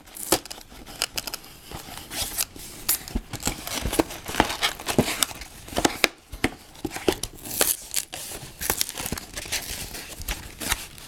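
A small Lego set's cardboard box being opened by hand: tearing and crinkling of the packaging, with many irregular sharp clicks and rustles and a brief pause about halfway through.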